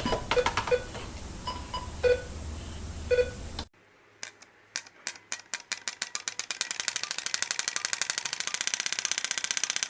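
Short electronic beeps over a low hum. Then, after a sudden cut about three and a half seconds in, a mechanical clicking that speeds up into a rapid, even ticking.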